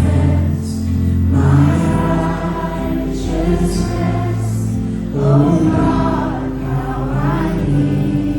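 Live worship music: a group of voices singing a slow Christian worship song together over sustained acoustic accompaniment.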